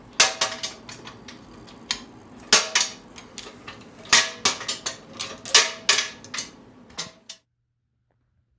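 Steel lid clamps of a resin pressure pot being swung into place and tightened by hand: clusters of sharp metallic clanks and clicks with a little ringing. They stop about seven seconds in.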